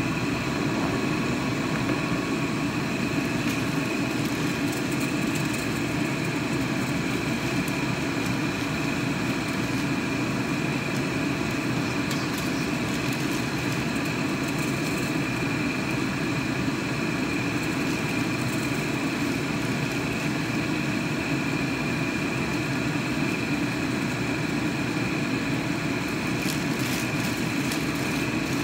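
A gas stove burning under a lidded wok of soup water makes a steady rushing hum, with a faint constant high whine over it.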